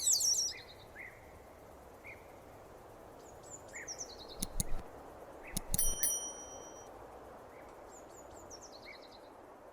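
Otter calls: a burst of high-pitched descending chirping whistles that stops about half a second in, then faint chirps about once a second and a few soft descending squeaks. Two sharp clicks in the middle, the second followed by a brief ringing tone.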